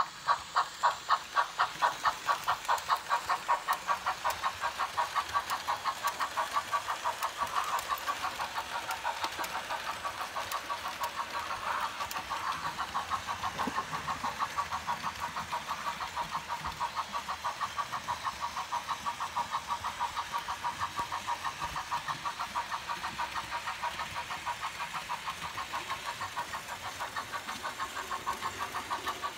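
Märklin H0 Union Pacific Mikado 2-8-2 model steam locomotive's sound decoder playing steam chuffs through its small speaker. The evenly spaced chuffs quicken over the first few seconds as the locomotive gathers speed, then run on as a fast steady beat.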